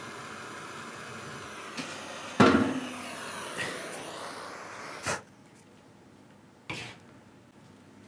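Hand-held gas torch hissing steadily as it lights cardboard, with a loud knock about two and a half seconds in; the hiss stops with a knock about five seconds in as the torch is shut off, and there is one more knock near the end.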